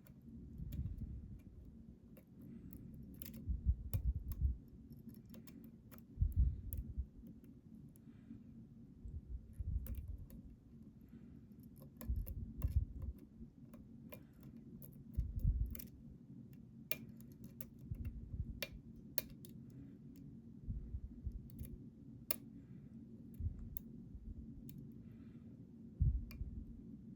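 Small metallic clicks and ticks at an irregular pace from a pick and tension wrench working the pins of a Storm Crow 'Bombay Sapphire' challenge lock, with dull low thumps every few seconds from handling the lock.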